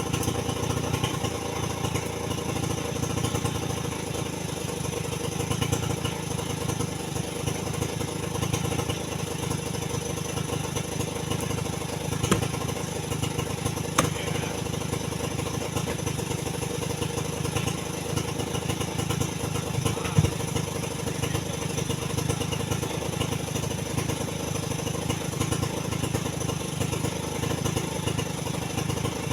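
Chainsaw running steadily under load, making the back cut through a large tree trunk once the felling notch is done, with a few brief sharp clicks.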